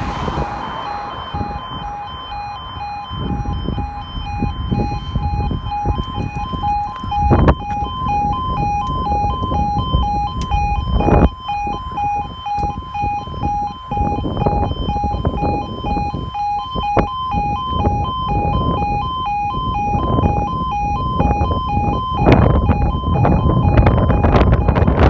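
Railway level crossing warning alarm sounding: a rapidly alternating two-tone warble that starts about half a second in and keeps going, with wind buffeting the microphone underneath.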